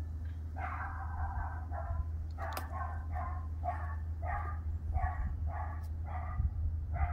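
French bulldog puppy barking, high-pitched: one longer bark about half a second in, then about ten short barks, roughly two a second. A steady low hum runs underneath.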